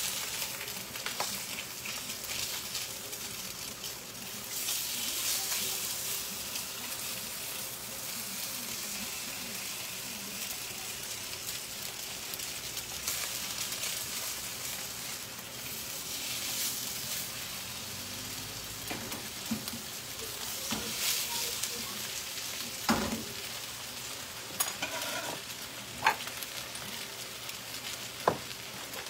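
Slices of Spam sizzling in a frying pan: a steady frying hiss that swells louder now and then. In the last few seconds, a handful of sharp knocks of a knife on a wooden cutting board.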